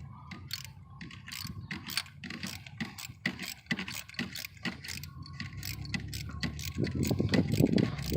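Socket ratchet clicking as a new spark plug is tightened into its hole with an extension: a quick, uneven run of sharp metallic clicks, louder and busier near the end.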